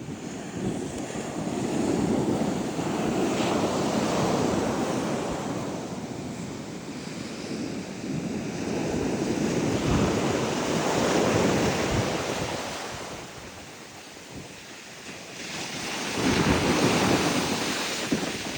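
Sea surf breaking on a beach, swelling and falling away in about three slow surges, with wind buffeting the microphone.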